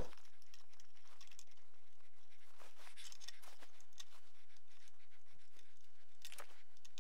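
Faint, scattered small clicks and scrapes of a bolt, washer and lock nut being handled and fitted to the front fender stay of an e-bike, the clearest a little after halfway and near the end, over a faint steady hum.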